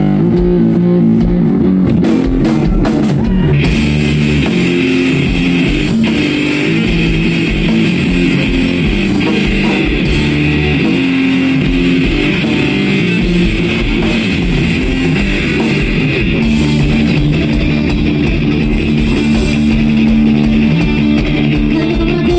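Rock band playing live: electric guitar, bass guitar and drum kit in an instrumental passage, with no vocals. The sound grows fuller about three and a half seconds in.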